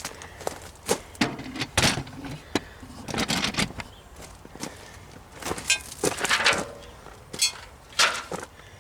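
Irregular knocks, clinks and scuffs of metal parts being handled while working on a skid steer, some close together and a few sharper hits.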